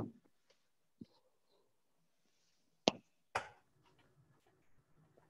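Four sharp clicks and taps from microsurgical instruments, a micro blade and fine forceps, being handled while opening a practice coronary artery. Between them there is only faint handling noise.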